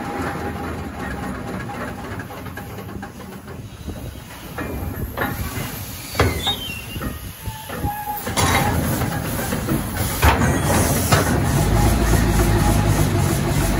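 Ruston Hornsby steam face shovel working from the cab: its steam engines and gearing running as the machine slews, with steam hissing and metal clanking. Several sharp knocks come in the middle, and the running grows louder with a steady beat near the end.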